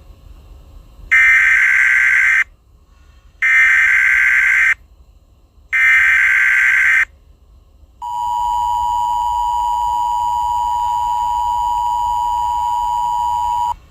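Emergency Alert System header: three short bursts of screeching SAME data tones, each a little over a second, then the steady two-tone EAS attention signal held for about six seconds, marking the start of an emergency alert broadcast.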